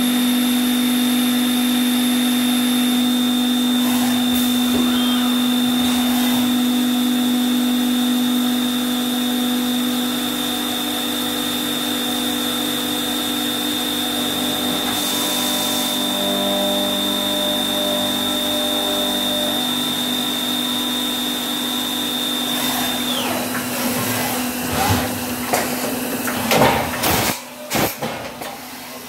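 Spindle of a five-axis vertical machining centre running with a steady high whine and hum while milling a lathe cutting tool. About three-quarters of the way through the whine falls away as the spindle slows, followed by several knocks and short whirs from the machine.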